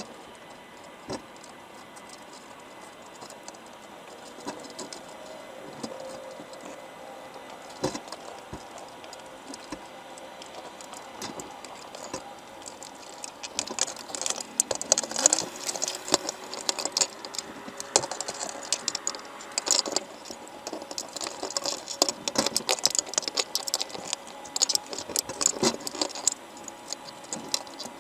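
Underwater clicking and crackling from crabs crowding a baited crab trap, their shells and legs knocking against each other and the wire mesh as they feed. The clicks become much denser and louder about halfway through.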